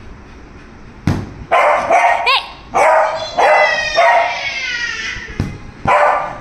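Beagle barking repeatedly, starting about a second in, with one long drawn-out bay in the middle that falls in pitch.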